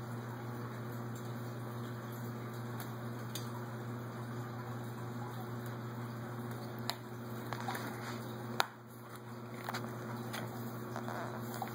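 Steady low hum with a few soft handling sounds and sharp light clicks, as small toy pieces are handled: one click about seven seconds in and a louder one about eight and a half seconds in.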